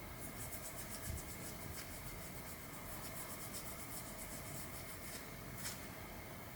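Quick, even rubbing or scrubbing strokes, several a second, for about five seconds, then a single sharp click near the end.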